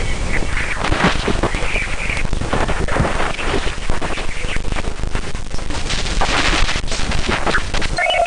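Radio emissions recorded near Jupiter's moon Ganymede, converted into sound: a dense hissing static full of irregular crackles and pops. Right at the end it gives way to steady high beeping tones.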